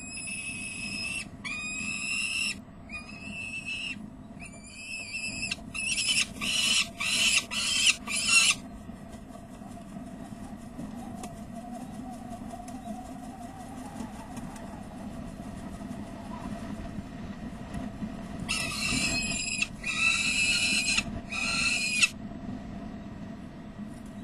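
Adult peregrine falcon giving harsh alarm calls: four drawn-out calls about a second each, then a quick loud run of calls, and after a long pause three more drawn-out calls. The adult is warning at a young falcon fluttering on the ledge edge.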